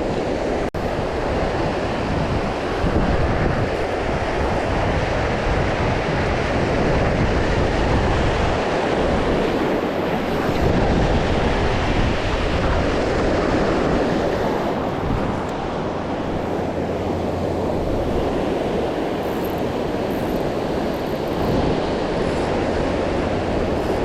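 Surf washing onto a beach, with wind rumbling on the microphone.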